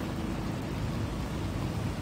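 Steady rushing of a swollen, flooding river, brown floodwater running fast around bridge piers, as an even roar heaviest in the low end.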